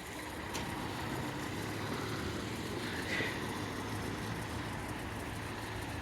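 A vehicle engine running steadily with a low hum, and a faint steady high tone above it.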